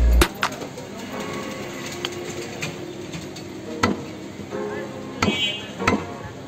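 Heavy butcher's knife chopping beef on a wooden log chopping block: a few sharp knocks spaced irregularly, with voices in the background.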